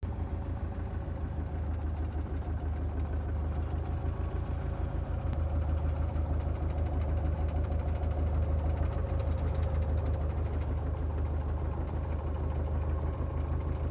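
Belarus 510 tractor's diesel engine idling steadily, a low rapid chugging that grows slightly louder through the middle.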